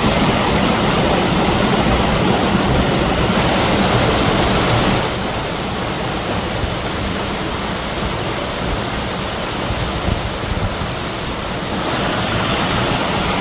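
Waterfall rushing, a steady, loud roar of falling water. About three seconds in it gains a brighter hiss, softens slightly a couple of seconds later, and near the end loses the hiss again.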